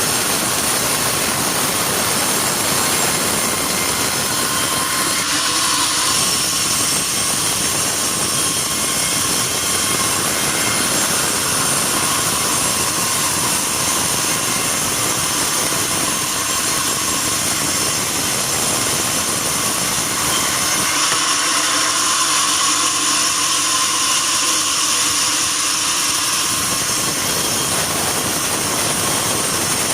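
Sawmill band saw running through wood: a loud, steady hiss with a high whine, and the deeper part of the sound drops away for a few seconds about two-thirds of the way through.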